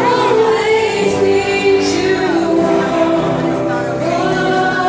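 Children's choir singing with a woman singing lead into a microphone, long held notes that glide between pitches.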